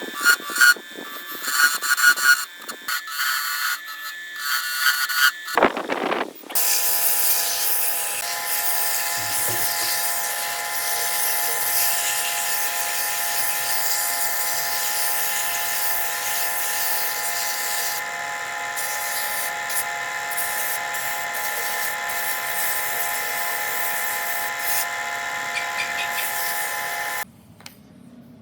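Irregular clattering and knocking, then a power tool's motor runs steadily for about twenty seconds and cuts off suddenly near the end.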